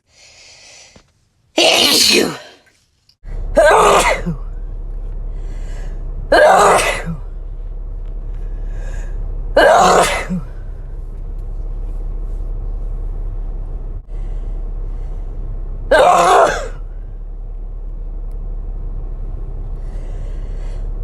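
A person sneezing, five sneezes a few seconds apart, each a sudden loud burst. From about three seconds in, a steady low hum runs underneath.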